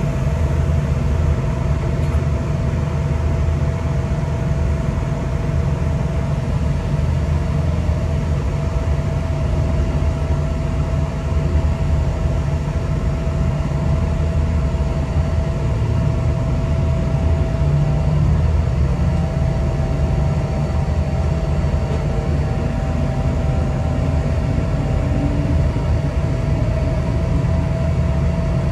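Passenger train running, heard from inside the carriage: a steady low rumble with a constant tone over it.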